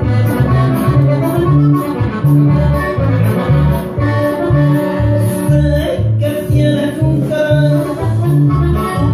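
Loud Mexican regional music with accordion over a steady, even bass beat: an instrumental stretch of the song.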